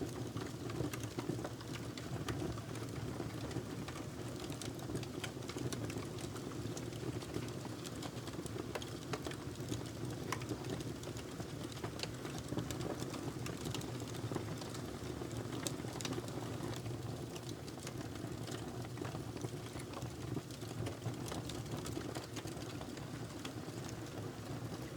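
Fire burning in a fireplace: a steady low rush with frequent small crackles and pops scattered throughout.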